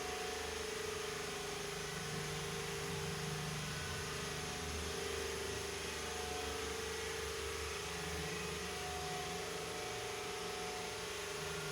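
Steady machine hum with a hiss over it, a motor running without change.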